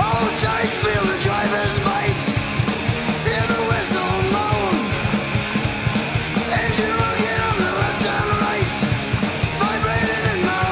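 Rock music with singing over a steady, driving drum beat.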